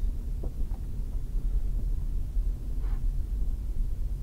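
Low, steady rumble of a car driving on a packed-snow street, heard from a dashcam inside the cabin, with a couple of faint light clicks about half a second in.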